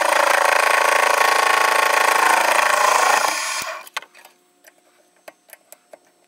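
Metal lathe running with an end mill turning in its chuck, a steady mechanical drone that is switched off and winds down about three and a half seconds in. A few light clicks follow as the part is handled.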